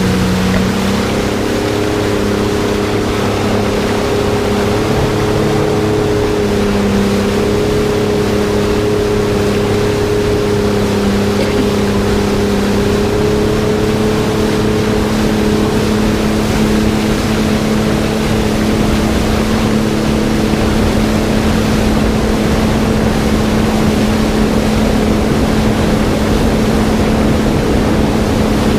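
Jet ski engine running steadily at speed, with rushing water and wind noise; its pitch steps up slightly about a second in.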